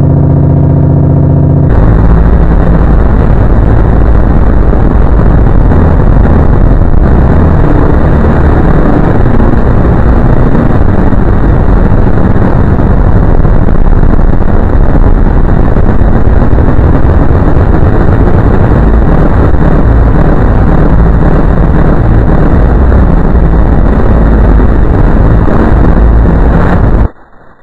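Extremely loud, heavily distorted audio pushed to full scale: a held chord for the first two seconds, then dense, harsh noise with no clear tune, which cuts off suddenly near the end.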